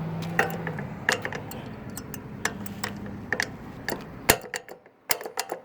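Sharp clicks from a pedestrian crosswalk push-button station, several a second at uneven spacing, over a low hum that drops away about four seconds in.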